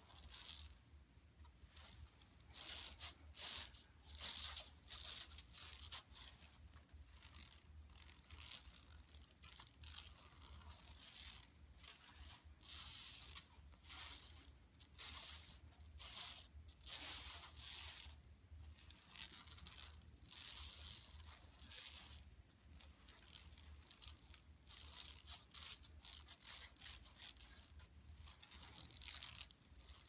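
Long natural fingernails scratching the surface of a shopping bag, in quick, irregular bursts of short scratchy strokes.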